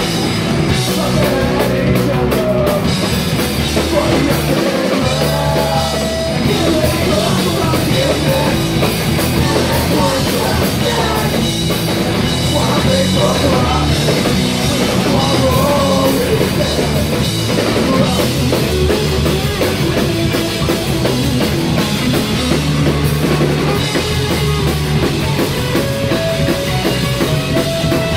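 Live punk rock band playing loudly: distorted electric guitar, bass guitar and a drum kit.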